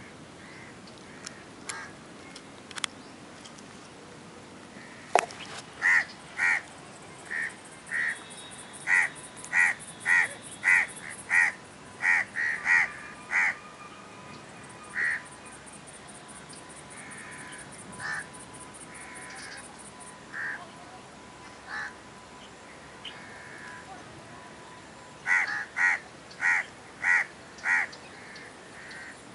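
A crow cawing in runs of short, harsh calls, about two a second, with scattered single caws between the runs. A sharp click sounds about five seconds in.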